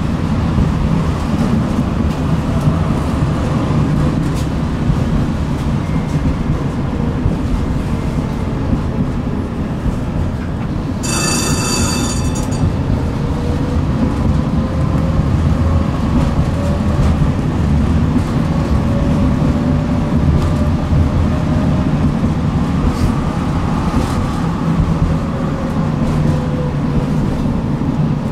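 Tram running along its rails, heard on board: a steady low rumble with a faint motor whine that rises and falls in pitch. About eleven seconds in, a brief high ringing tone lasts a second and a half.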